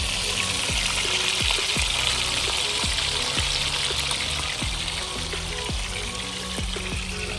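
Food deep-frying in a pot of hot oil, a steady crackling sizzle. Under it, music with a steady bass beat.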